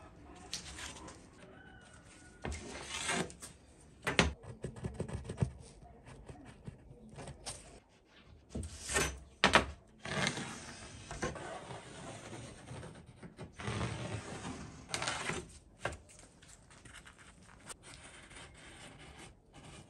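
Pencil scratching marking lines on plywood, with irregular knocks and scrapes as a steel ruler is set down and slid across the board.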